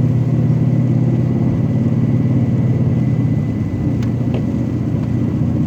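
Car engine and road noise heard from inside the moving car: a steady low drone that eases slightly about three and a half seconds in.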